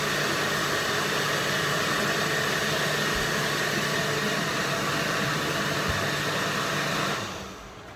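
Countertop blender running steadily at high speed, blending a smoothie, then switched off and winding down about seven seconds in.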